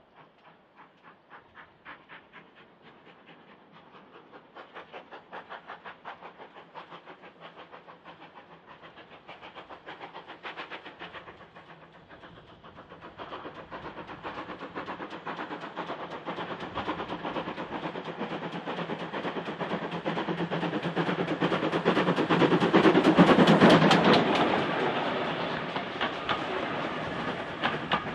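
Great Western pannier tank steam locomotive running, a steady rhythm of beats and rail clatter that builds gradually, is loudest about 23 seconds in, then eases off.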